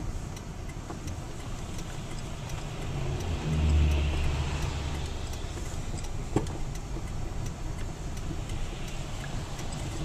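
Car road noise heard from inside the cabin: tyres on a wet, slushy road and the engine running. A low rumble swells about three to four seconds in, and there is a single sharp knock a little after six seconds.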